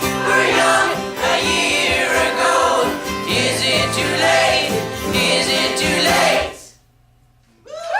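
Choir and band singing and playing the closing bars of a song. The music cuts off about six and a half seconds in, and after a second of silence the crowd's voices start up right at the end.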